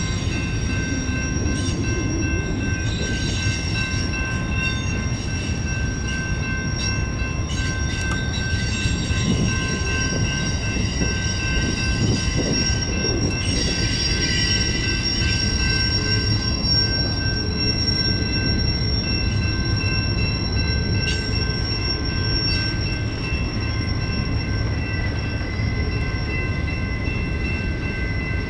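CSX freight train rolling past: a steady low rumble of wheels on rail, with high-pitched wheel squeal held on several steady tones over it.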